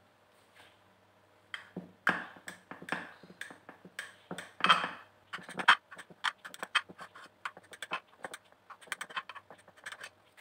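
Knife cutting baked brownies into squares in a glass baking dish: a fast, irregular run of clicks and knocks as the blade strikes the glass, starting about a second and a half in.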